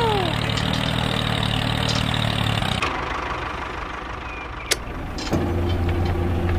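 Tractor engine running steadily. It breaks off abruptly about three seconds in; a single sharp click follows, and from about five seconds a steady engine hum runs again.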